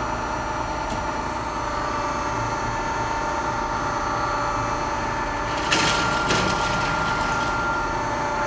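1983 Shigiya-Okamoto GUA-32-60 universal cylindrical grinder running, a steady machine hum with several steady whining tones. A short hissing burst comes a little past halfway, with a smaller one just after.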